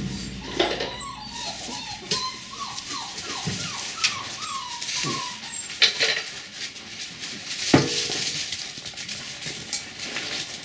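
A seven-week-old puppy whining in a quick run of short, high, falling squeaks, with a few sharp knocks and taps scattered through.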